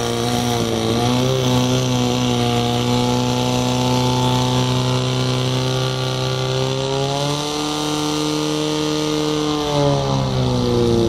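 Portable fire pump's engine running hard at high revs, a steady drone as it pumps water to the attack hose lines. Its revs climb about seven seconds in, hold higher, then drop back near the end.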